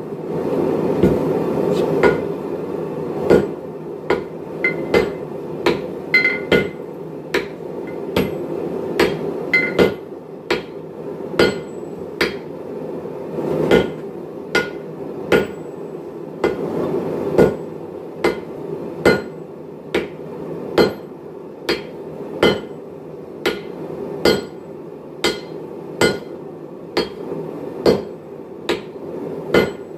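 Two sledgehammers taking turns striking a hot Damascus billet on an anvil to forge-weld its layers: a steady run of heavy blows, about one a second, some leaving a brief metallic ring, over a steady low rushing noise.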